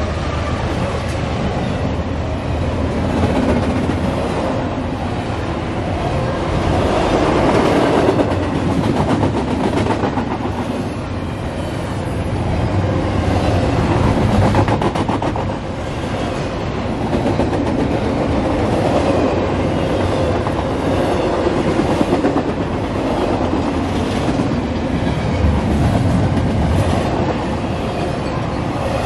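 Fast intermodal freight train passing close by: the last of its diesel locomotives goes by at the start, then double-stack container cars roll past with steady, loud wheel-on-rail noise.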